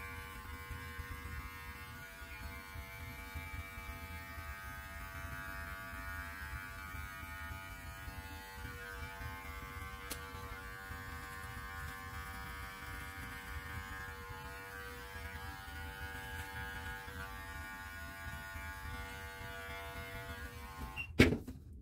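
Electric beard clippers running with a steady buzz as they trim a long beard, then switching off near the end. Two sharp knocks follow just after they stop.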